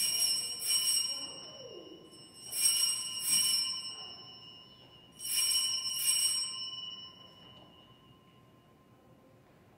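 Altar bell rung three times, each ring a pair of strikes, with a clear metallic tone ringing on and fading away after the last: the signal of the elevation of the consecrated host at Mass.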